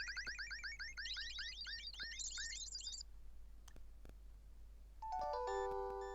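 Nokia 7710 ringtones playing. First a fast run of short falling electronic chirps, about ten a second, steps up in pitch twice and stops about three seconds in. After a short pause a second ringtone starts, its notes entering one after another and holding as a chord.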